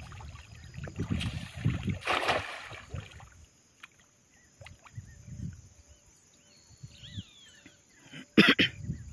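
Water splashing and sloshing as a cast net is thrown and worked in shallow pond water, with a broad splash about two seconds in and a sharper one near the end.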